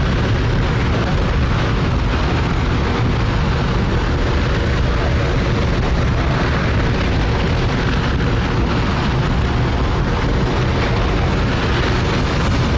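J-2X hydrogen-oxygen rocket engine firing on a test stand: a steady, deep, continuous rushing noise.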